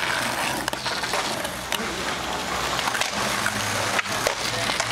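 Skateboard wheels rolling over rough asphalt: a steady gritty rolling noise with scattered sharp clicks and knocks.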